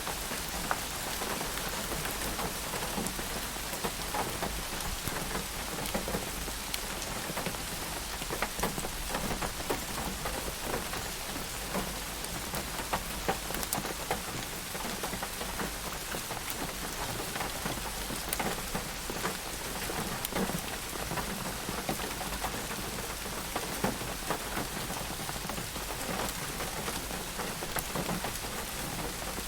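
Steady rain falling, a constant hiss with many individual drops ticking and pattering on a surface.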